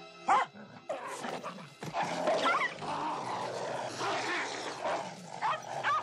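A dog yelping in short, high, bending cries: once near the start, twice about two and a half seconds in, and again near the end, with a continuous rough noise between them.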